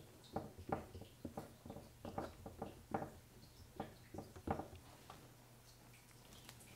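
Short, irregular scrapes and taps of a flat scraping tool laying cold wax and oil paint onto a painting, stopping about five seconds in.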